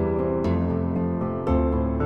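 Soft, slow instrumental background music: sustained notes, with a new chord struck about half a second in and again about a second and a half in.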